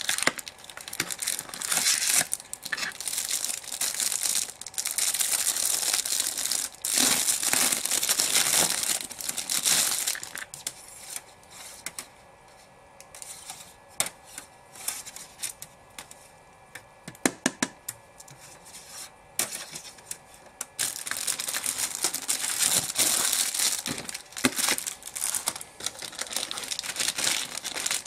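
Plastic packaging bags and paper crinkling and rustling as they are handled. About ten seconds in it goes quieter, with a few sharp clicks, and the crinkling picks up again near the end.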